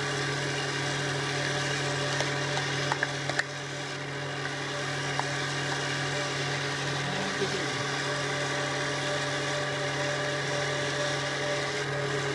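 Kenwood Chef A701A mixer motor running steadily at speed 4, driving the A789 mincer attachment as it grinds rice through the coarse screen. A few light clicks about three seconds in.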